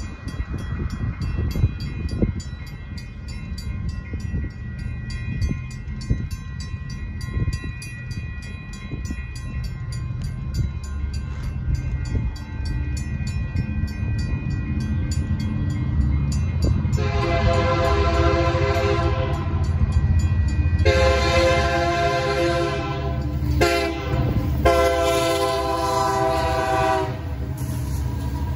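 Railroad crossing bells ringing steadily while EMD SD59MX diesel locomotives approach with a low rumble that grows louder. From about halfway in, the lead locomotive's horn sounds several long blasts, the crossing warning and the loudest sound. Near the end the locomotives roll over the crossing.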